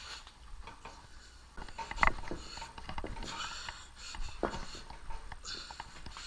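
Scattered clicks and knocks with brief rustling as parts and the camera are handled, and one sharper knock about two seconds in.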